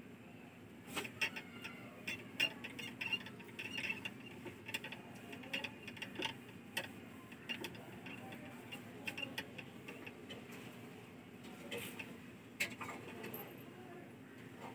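A whiteboard being wiped clean and then written on with a marker: irregular light taps, clicks and rubbing strokes against the board, with a faint steady hum underneath.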